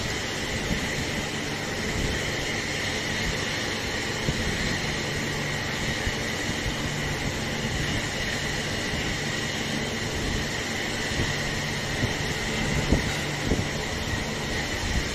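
Steady drone of workshop machinery running, with a constant high whine over a low hum and a few faint knocks near the end.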